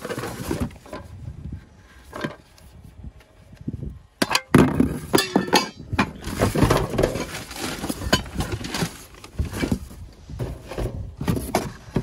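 Cardboard boxes and trash being rummaged and shifted by hand in a dumpster: irregular scraping, rustling and knocks, with a few sharp clinks and knocks about four seconds in.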